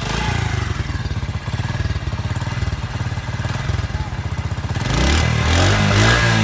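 Honda CD70 (2021 model) motorcycle's single-cylinder four-stroke engine idling with an even firing beat, then revved up and let back down near the end.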